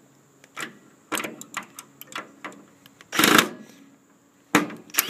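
Scattered light clicks and taps of a screwdriver bit being lined up on, and working at, the handle screws of a plastic microwave door, with a brief louder burst of noise about three seconds in.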